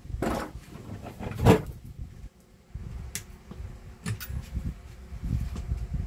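A wooden tool drawer being opened and rummaged, tools rattling inside it, with the loudest rattle about a second and a half in, followed by lighter clicks and knocks of hand tools being handled.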